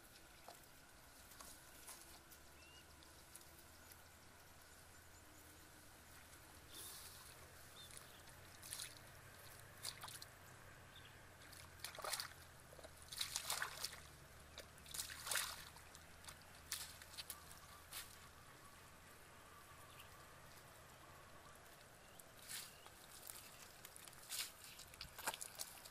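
Bare feet stepping through shallow water and mud, with irregular quiet splashes and squelches.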